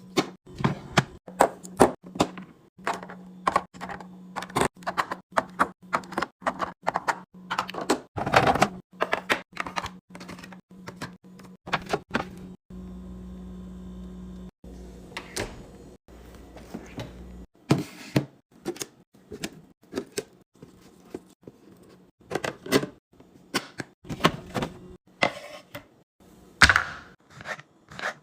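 Fast, irregular clicks, taps and knocks of plastic containers and packaging being handled and set down while a fridge is restocked, with a pause of about five seconds in the middle where only a steady low hum is left.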